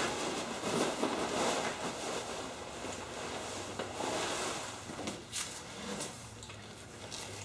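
Packing peanuts rustling and shifting as cans and bottles are dug out of a shipping box, with a few light knocks of containers being handled.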